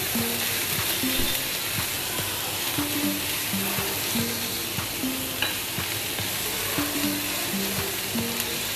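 Chopped onions and green chillies sizzling in a little oil in a nonstick pan, stirred with a spatula that scrapes and taps against the pan. The onions are being lightly fried for a filling.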